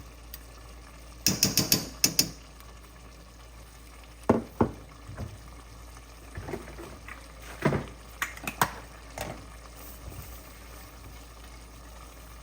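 A spoon knocking and scraping against the pot of chicken curry in short clusters, while the curry bubbles quietly on the gas.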